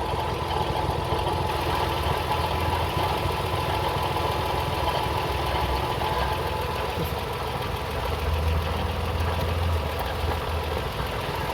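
Car engine idling with its accessory belts and pulleys turning, carrying a steady whine. This is the noise the owner traces to a failing water pump that is leaking antifreeze.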